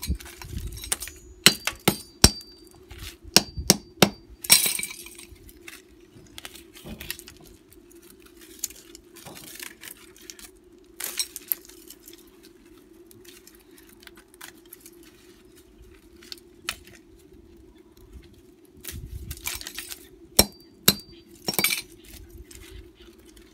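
Sharp clinks and clatter of hard broken plastic and small fragments being handled and tossed on concrete while copper wire is stripped out by hand. The clinks come in bunches, thickest in the first few seconds and again near the end, over a faint steady hum.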